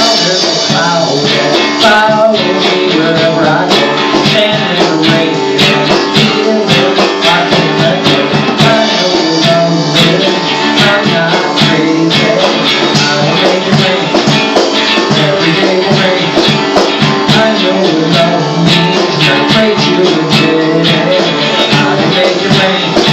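Song music led by strummed guitar, with no singing: an instrumental passage.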